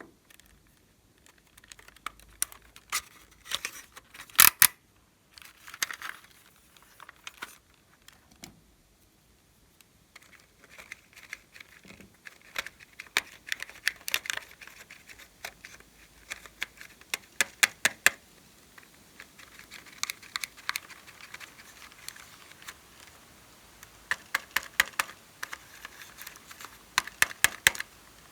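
Clear slime being squished and kneaded by hand, with irregular runs of sharp clicks and wet pops and a crackling sound, loudest about four seconds in.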